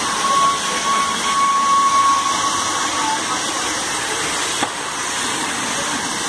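Steady loud hissing rush of a city bus on fire, burning with flames and heavy smoke. A thin whistle-like tone sounds over it for about the first three seconds, and there is a single sharp click a little past the middle.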